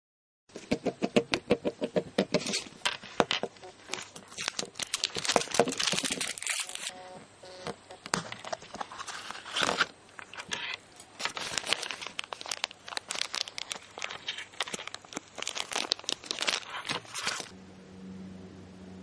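Clear plastic bag crinkling and rustling as a capsule-toy figure is unpacked from its green plastic capsule, with clicks of the capsule plastic in dense, irregular bursts. It stops a little before the end, leaving a faint steady hum.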